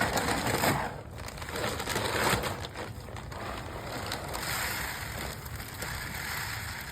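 Dry seed and chicken feed being poured and shifted, a continuous granular rustle. It is loudest in the first second and again about two seconds in.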